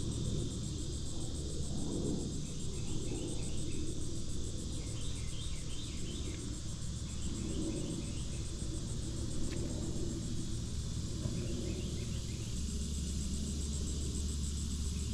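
Outdoor ambience: a steady low rumble on the microphone under a constant high insect buzz, with short bursts of quick chirps several times.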